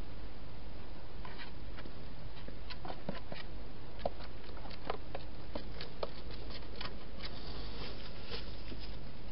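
Wild hedgehog moving about in a clear plastic feeding box, making irregular small clicks and crackles, with a short rustle near the end. A steady hiss and low hum from the camera's microphone runs underneath.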